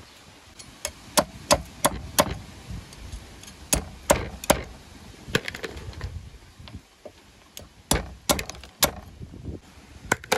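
A knife chopping on a cutting board: a dozen or so sharp, irregular strokes in short clusters, with pauses between them.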